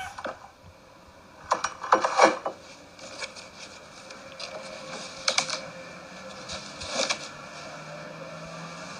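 Handling of a disposable face mask: scattered rustles and small clicks as the mask is pulled off a mug, unfolded and put on, with the clearest cluster about two seconds in and single crackles later.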